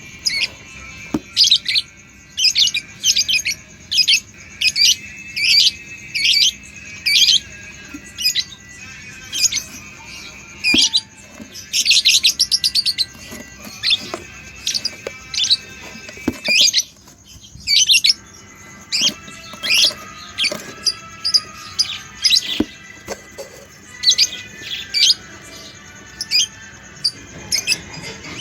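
Budgerigars chirping: a string of short, sharp, high calls, about one or two a second, with a quick rattling run of calls about twelve seconds in and a short pause a few seconds later.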